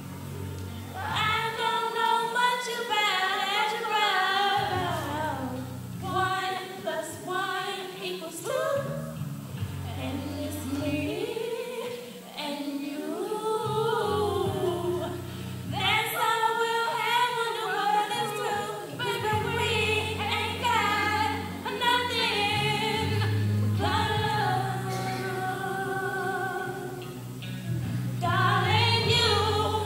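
A teenage girl singing solo into a microphone, long phrases with pitch bends and runs.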